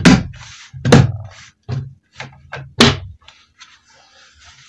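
Fermenter lids being pressed and knocked shut onto the fermenters of fresh mash. It is a run of sharp thumps: three loud ones, at the start, about a second in and near the three-second mark, with lighter knocks between, then a faint rustle.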